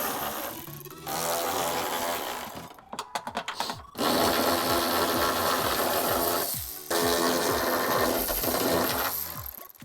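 A power tool running in four bursts of one to three seconds each, with short pauses between, over background music.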